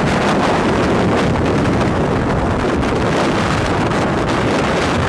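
Strong tornado winds buffeting the microphone: a loud, steady rushing roar with no letup.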